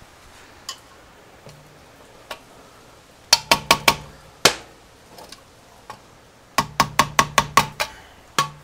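Sharp taps with a short ring in quick runs: four, then a single, then about seven, then one more. They come from screwdriver work at the bottom of a Honda CL350's fork legs, bending the metal locking tabs over the bolts.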